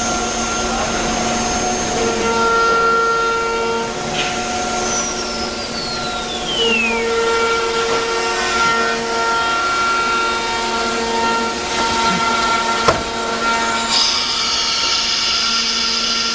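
A CNC wood router runs with its spindle giving a steady whine over cutting noise as it mills wooden parts. About five seconds in, a high whine falls steadily in pitch. Near the end a sharp click is followed by a new, higher whine starting up.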